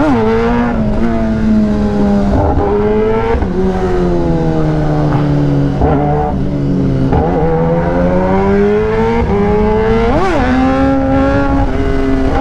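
Kawasaki Ninja ZX-10R's inline-four engine running while being ridden, its pitch rising and falling with the throttle. There are quick sharp revs at the very start and again about ten seconds in.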